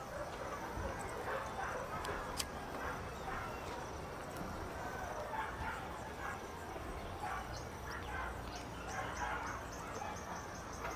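Faint distant neighbourhood ambience: dogs barking and far-off voices, with a quick run of high chirps in the second half.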